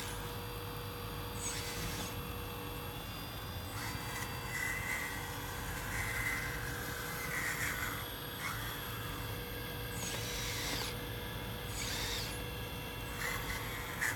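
Remote-control model excavator's electric drive running, with short whines that rise and fall in pitch several times as the boom and upper body swing. A few brief gritty scrapes come from the sand and gravel.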